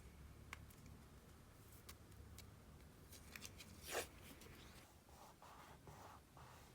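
Stickers being peeled from their backing sheet and pressed onto a paper diary page: scattered small ticks, a sharper crackle about four seconds in, then soft paper rustling near the end.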